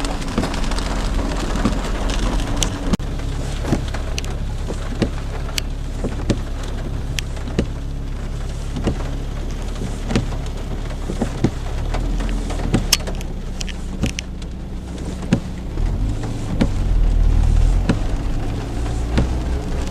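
Steady low rumble with a faint hum, under many scattered, irregular crackles and taps.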